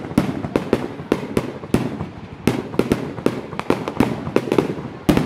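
Fireworks display: a rapid, irregular string of aerial shell bursts, about three or four bangs a second, each trailing off in a short echo.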